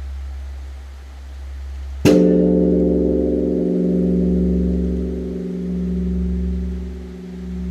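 Large Korean bronze temple bell (beomjong) struck once with its wooden log about two seconds in. It rings on in a long, deep, many-toned hum that swells and fades about every two seconds, and the low hum of the previous stroke is still sounding before the strike.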